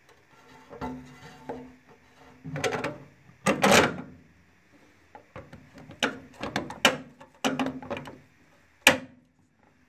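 Handling noise as a plastic LED tail-light housing is fitted against a steel mounting plate and its wiring pulled through: a run of irregular knocks and scrapes, the longest about three and a half seconds in and a sharp knock near the end.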